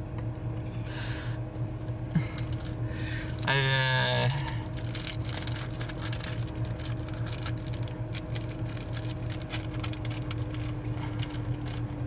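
Steady low hum of a parked car's cabin with its systems running, carrying a couple of faint steady tones and scattered light clicks. About three and a half seconds in, a short pitched hum sounds for under a second.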